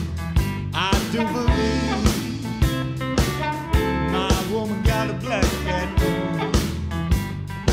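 Recorded electric blues band playing an instrumental passage with a steady drum beat, guitar and bending lead notes.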